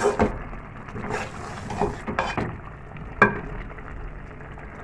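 Metal spoon stirring a thick chicken curry in a metal pot, knocking and scraping against the pot several times, with one sharp ringing clank about three seconds in.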